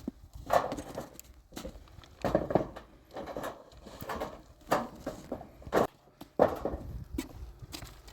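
A series of irregular knocks and scuffing crunches, roughly one every second or so.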